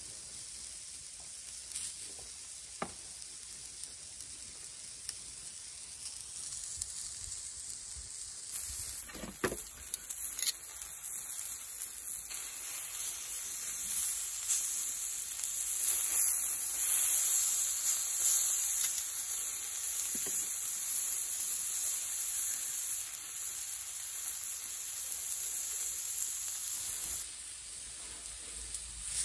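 Beef steaks sizzling on a hot cast-iron grill plate: a steady high hiss that grows louder about nine seconds in and drops back near the end, with a few light knocks.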